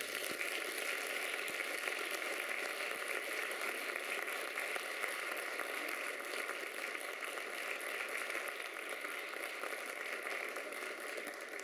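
Audience applauding in a theatre hall, a dense steady clapping that begins to die away near the end.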